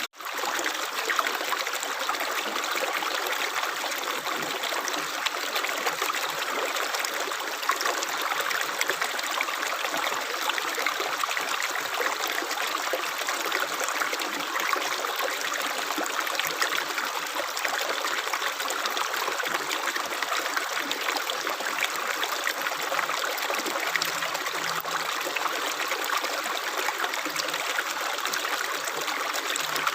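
Steady rush of running water, like a stream, an even hiss without pause. It cuts out for an instant at the very start and comes straight back.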